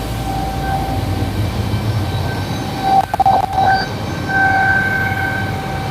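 Fire apparatus diesel engine and fire pump running hard under load while flowing water from a hydrant supply, a steady low rumble with a steady high whine over it. A few sharp knocks come about three seconds in.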